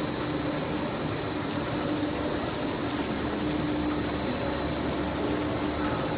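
PP raffia twine extrusion line running steadily: a constant machine hum with a steady mid-pitched drone and a thin, high whine over it.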